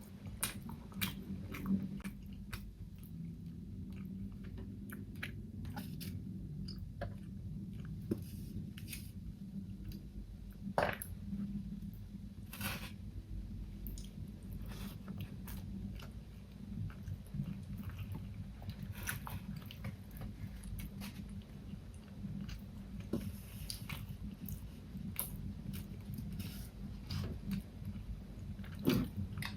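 Close-miked mukbang eating: steady chewing of food with scattered crunchy bites and short sharp clicks.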